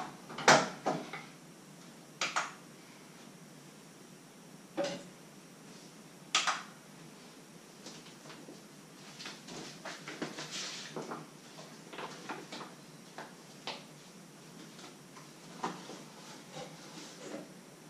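Kitchen handling noise: a few sharp knocks as a stainless steel mixing bowl and dishes are set down on a wooden worktop, the loudest about half a second in, followed by a busier stretch of lighter clinks and small knocks.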